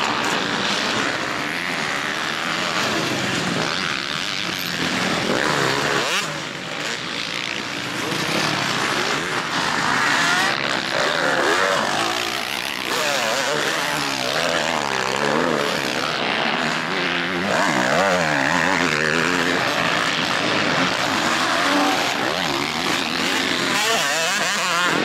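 Several motocross bikes racing, their engines revving up and falling away, with more than one engine heard at once.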